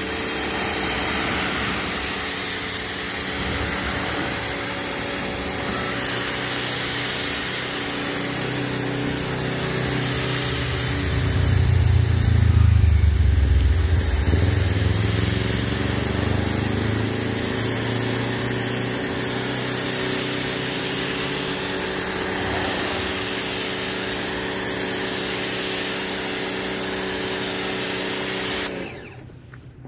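A pressure washer running with its water jet spraying, a steady motor hum under the hiss of the jet as the snow foam is rinsed off a car. It swells louder and lower for a few seconds midway, and the motor stops about a second before the end.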